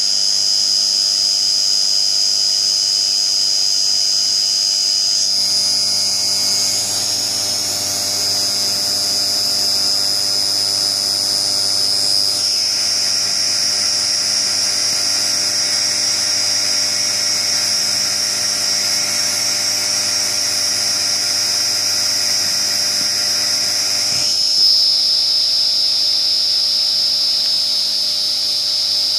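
Novakon Torus Pro CNC mill spindle running at 6,000 RPM with a small end mill, a steady high whine over the hiss of an air blast clearing chips. The sound grows fuller from about 12 to 24 seconds in, then goes back to the thinner whine.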